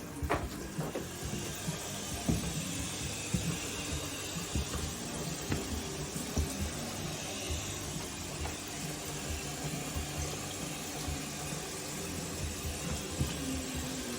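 eufy X10 Pro Omni robot vacuum running: a steady whirring hiss with irregular low knocks and bumps.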